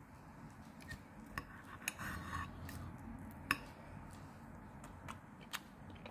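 Knife and fork cutting a piece of cooked chicken on a plate: faint scraping with a few light clinks of metal against the plate, the sharpest about three and a half seconds in.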